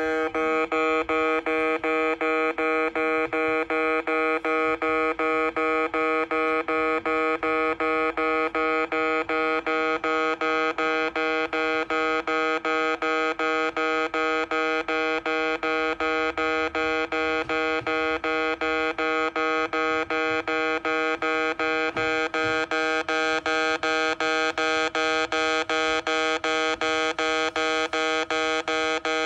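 Japanese railway level-crossing alarm ringing at a Kintetsu crossing: a loud electronic bell tone repeated in quick, even strokes without a break, the crossing sounding although no train passes.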